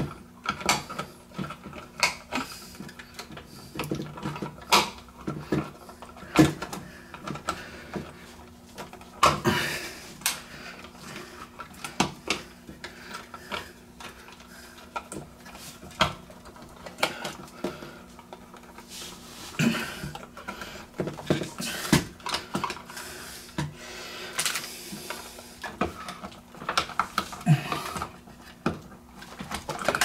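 Irregular clicks, knocks and rustling as stiff electrical wires are folded into a wall box and a plastic dimmer switch is pushed in against it.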